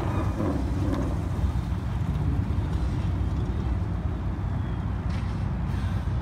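Classic Ford pickup driving slowly past, its engine a steady low rumble.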